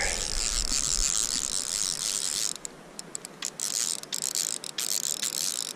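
A fly reel's drag ratcheting in a fast continuous buzz as a hooked rainbow trout pulls line. About two and a half seconds in, the buzz breaks into separate, irregular clicks.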